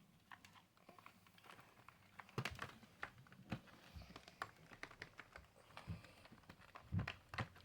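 A series of irregular light clicks and taps, with the loudest strikes about two and a half seconds in and again near the end.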